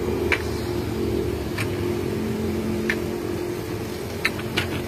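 Light clicks of small plastic putu ayu molds being handled and knocked as the steamed cakes are turned out, five in all, mostly about one every second and a half with the last two close together, over a steady low hum.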